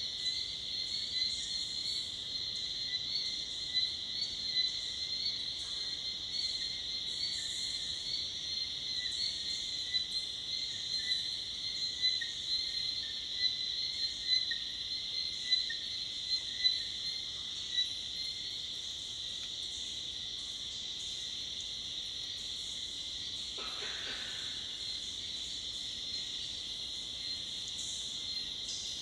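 Evening chorus of forest insects, cicadas and crickets: a steady high-pitched drone, with irregular louder chirps over it that stop about 18 seconds in. A brief lower call sounds once, about 24 seconds in.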